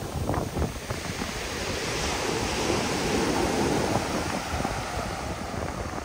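Ocean surf breaking on a sandy beach: a wave builds to its loudest about halfway through and then washes out, with wind buffeting the microphone throughout.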